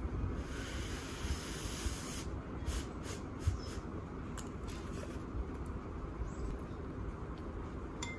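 Steady low background rumble with a soft hiss in the first two seconds and a few faint clicks through the middle; near the end a metal spoon clinks against a ceramic bowl as rice is scooped.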